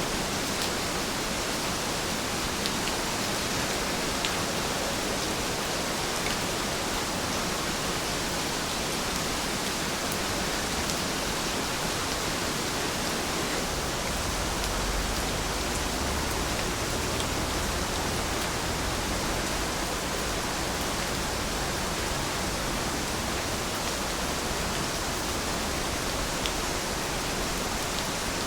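Steady rain falling, an even hiss with faint scattered drop ticks. A soft low rumble swells briefly about halfway through.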